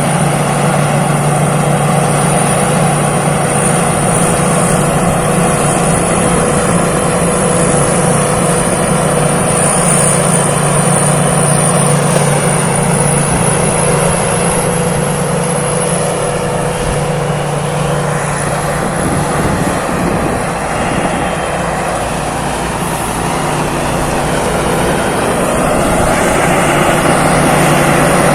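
Rice combine harvester from Thai Seng Yon Agriculture running steadily: a low engine hum with a high steady whine above it. It dips slightly past the middle and grows louder again near the end.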